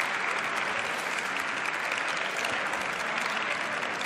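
Applause from a large crowd, many people clapping steadily.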